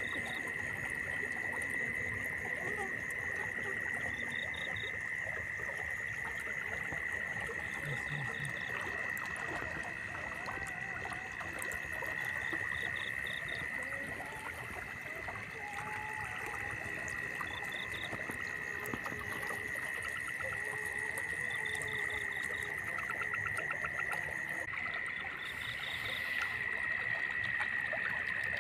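Night chorus of frogs and insects in a flooded rice paddy: a steady high-pitched drone, short trills repeating every second or two, and scattered croaking calls.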